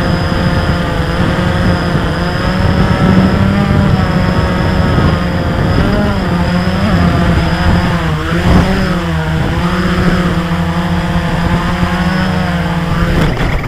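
Small multirotor drone's electric motors and propellers buzzing steadily, heard from the drone's own camera, the pitch wavering as it descends to land. Near the end there is a click and the pitch drops.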